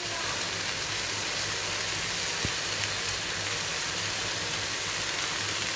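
Onions, tomatoes and freshly added chopped vegetables sizzling in hot oil in a wok: a steady, even hiss over a low steady hum.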